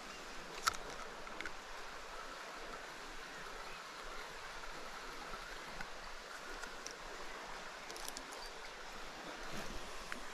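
Small, clear mountain stream running: a steady rush of water. A sharp click comes a little under a second in, and a few fainter clicks follow later.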